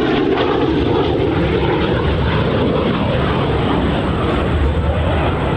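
Loud, steady jet noise from the Frecce Tricolori's Aermacchi MB-339 turbojet trainers flying their display overhead.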